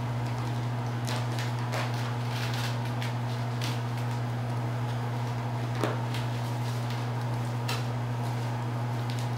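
Kittens' paws and claws scrabbling and tapping on a corrugated cardboard scratcher and tile floor: scattered light scratches and knocks, with one sharper knock a little before six seconds in. A steady low hum runs underneath.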